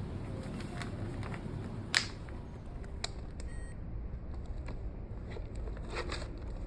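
Handling clicks on a Warmcare bed-exit alarm unit, the loudest a sharp click about two seconds in, and a brief, faint electronic beep a little after three seconds, over steady low background noise.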